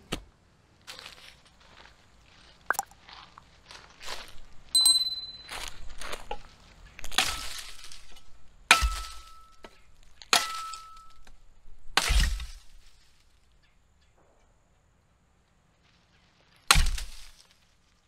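Small steel shovel scraping and knocking in a dirt-and-ash fire pit, then the shovel's blade chopping into a dead branch: four hard strikes, several with a short metallic ring, then one more heavy strike after a pause of a few seconds.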